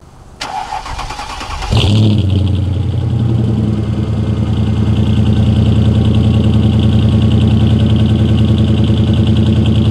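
Car engine cranked by its starter, catching a little under two seconds in with a brief flare, then idling steadily with an even pulse at the exhaust.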